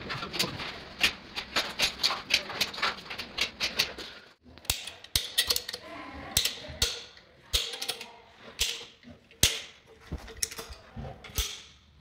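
Hand tools knocking and clicking against ceramic tile during tiling work: a quick run of sharp clicks for about four seconds, then after a sudden break, fewer and louder knocks.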